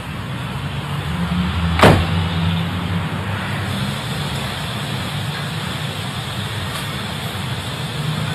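A car door shuts with one sharp thump about two seconds in, over the steady low hum of a car's engine idling.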